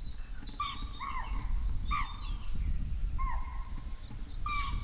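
Chital alarm calls: about five short, shrill barks, each falling in pitch, at irregular intervals, some in quick pairs, over a low background rumble.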